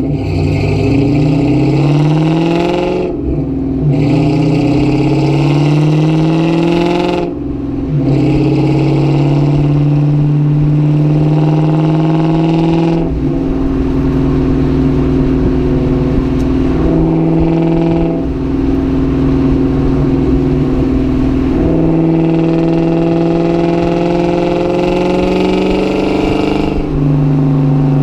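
2004 Ford Mustang GT's 4.6-litre V8 engine accelerating through the gears, its pitch rising and dropping at a shift about three seconds in and again about seven seconds in. The engine then runs at a mostly steady pitch with a few brief lifts and changes.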